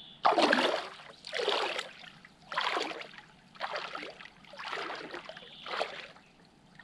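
A person moving through cold lake water, splashing six times at about one a second.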